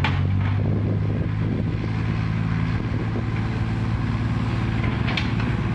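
Six-wheel dump truck's diesel engine running steadily while its hydraulic hoist tips up the loaded soil bed. Two short clicks, one at the start and one about five seconds in.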